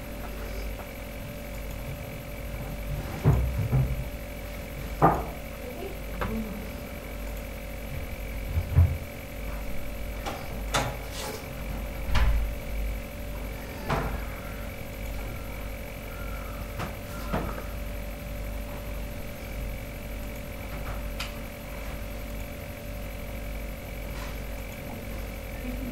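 Steady background hum with scattered light knocks and clicks, about a dozen over the stretch.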